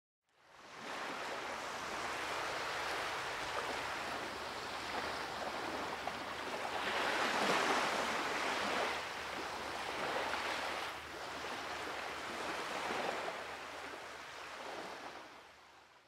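Surf washing onto a beach, fading in about half a second in, swelling loudest around the middle, then fading out near the end.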